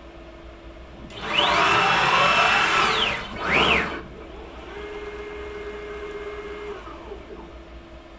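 CNC router's stepper motors whining through rapid axis moves. The pitch rises, holds and falls over about two seconds as the spindle carriage traverses the gantry, then a short second move rises and falls. After that comes a quieter, lower steady whine for about two seconds as the Z axis lowers the tool-change spindle toward the tool rack.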